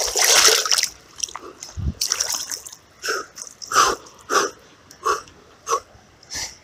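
Creek water splashing and sloshing around a wading angler during the first second, and again briefly about two seconds in. Then a run of short, sharp gasping breaths, about one and a half a second, from the shock of cold water pouring in over the top of his waders.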